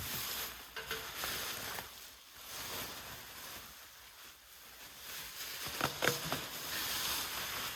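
Rustling and crinkling of packaging being handled and pulled off, coming and going in patches, with a couple of sharp clicks about six seconds in.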